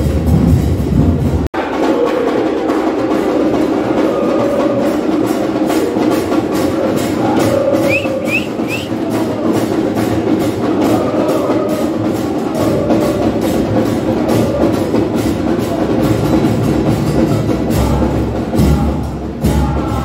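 Football supporters' bass drums (bombos) pounding a steady beat under a stadium crowd singing chants together.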